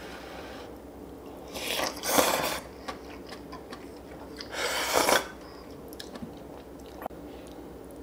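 Close-miked eating of short rib soup and radish kimchi: chewing, with two louder noisy bursts of mouth sound about two and five seconds in.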